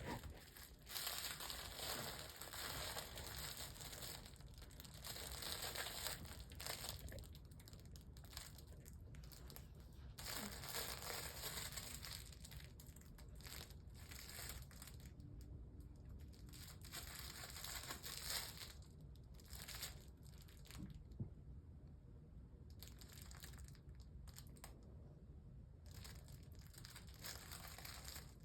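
Intermittent crinkling and rustling that comes and goes in spells of a few seconds, with quieter gaps between.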